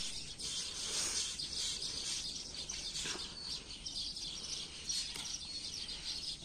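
Many small birds chirping and twittering at once, a dense continuous chorus of high, quick calls.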